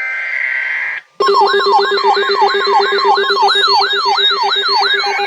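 Emergency alert signal: about a second of buzzing digital data tones, a short break, then a loud siren-like attention tone of rapid up-and-down sweeps, a little over two a second, over steady tones.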